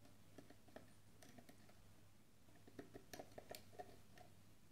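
Faint, scattered small clicks and scrapes of a lock pick working the pins of a pin-tumbler lock under tension, coming quickest about three seconds in, over a low steady hum.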